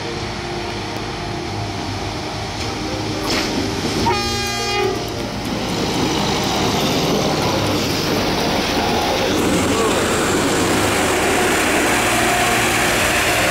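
Plasser & Theurer PBR-400U-RS ballast regulator coming out of a tunnel and passing close by, its diesel engine growing louder as it nears. About four seconds in, it gives one short horn blast: the railway's semboyan 35 horn signal, given by the crew for the railfans.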